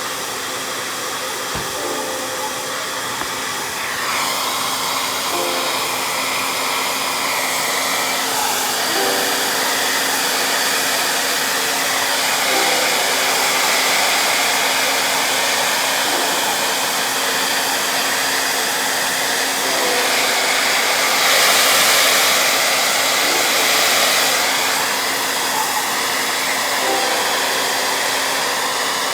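A hand-held hot-air dryer blowing steadily, with an even rushing noise.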